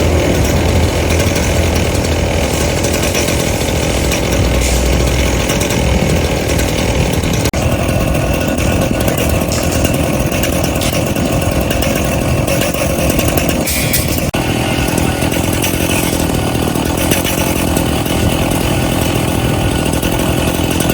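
Power tool running steadily and loudly, with the buzzing sound of a small engine.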